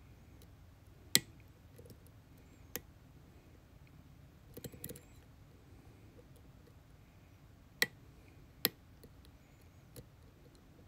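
Metal lock-picking tools clicking in a lock: a few sharp, separate clicks, the loudest about a second in, with a brief cluster of small clicks and rattles near the middle.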